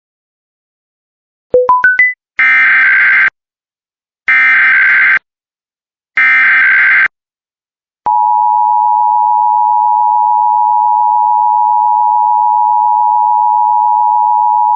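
Emergency Alert System required weekly test signal. Four quick rising beeps come first, then three one-second bursts of SAME digital header data, evenly spaced. A long steady attention tone begins about eight seconds in.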